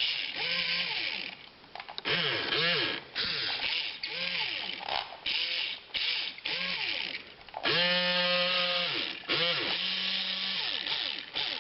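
Small geared DC motors of a kit-built robotic arm whining through their gearboxes in a series of short start-stop bursts. The pitch rises and falls as each motor spins up and winds down.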